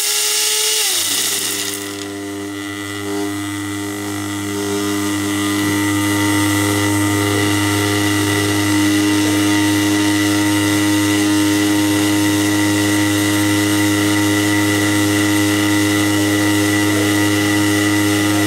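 Smart Dentin Grinder running its cycle on extracted teeth. The high-speed grinding whine drops away about a second in. It gives way to a steady electric buzzing hum as the chamber vibrates to sort the ground dentin particles.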